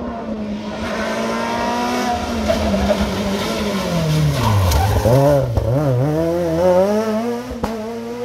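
Rally car engine dropping in revs as the car brakes into a hairpin, then revving up and down in quick swings through the turn and climbing again as it accelerates away, with a few short sharp cracks near the end.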